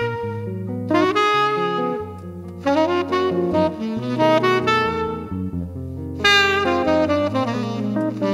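Tenor saxophone playing a jazz melody over hollow-body electric guitar accompaniment, a sax and guitar duo. New sax phrases come in about a second in, near three seconds and again around six seconds.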